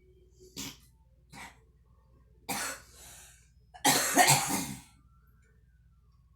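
A girl coughing while smoking: a couple of short coughs, then a stronger one, then a harder run of several coughs about four seconds in, the loudest part.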